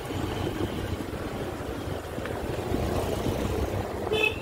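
Motor scooter riding along the road: steady engine and road rumble with wind noise on the microphone, and a brief high-pitched chirp near the end.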